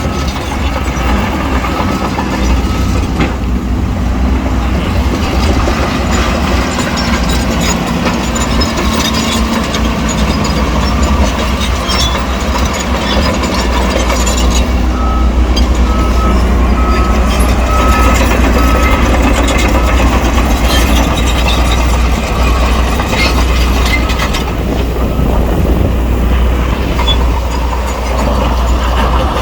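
Shantui crawler bulldozer working: its diesel engine runs loud and steady under load while the steel tracks clank and rattle. A reversing alarm beeps in short repeated pulses near the start and again around the middle.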